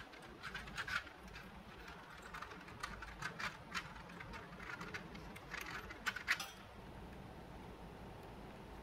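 Irregular small clicks and taps of plastic and circuit board as a grid of switch breakout boards is pressed down onto mechanical key switches seated in a plastic tray. The clicks stop about six and a half seconds in.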